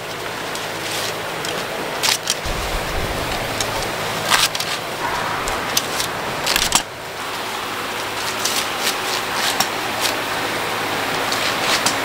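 Fresh ears of corn being trimmed against a fixed cutting blade: sharp chops and snaps at irregular intervals over the rustle of green husks and steady background noise.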